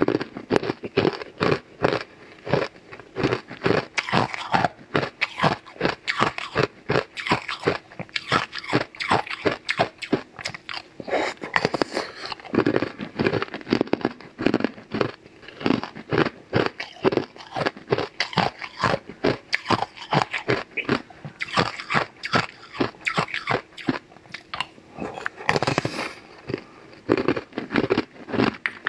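Rapid, sharp crunches as teeth bite and chew through hard frozen purple ice pieces, several crunches a second with no pause.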